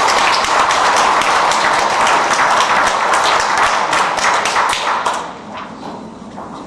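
Audience applauding, a dense patter of clapping that dies away about five seconds in.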